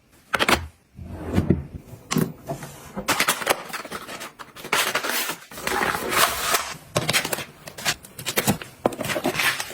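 Household items being handled and put in place: a busy run of sharp clicks and knocks with scraping and rustling in between.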